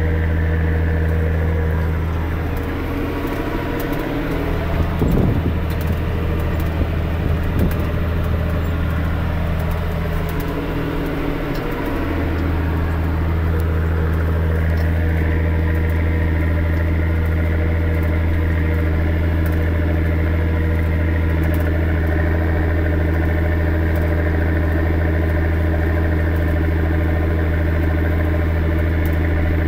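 Massey Ferguson 6280 tractor's six-cylinder diesel engine running steadily under ploughing load, heard from inside the cab as a deep, even drone. A few knocks and rattles come about five to eight seconds in.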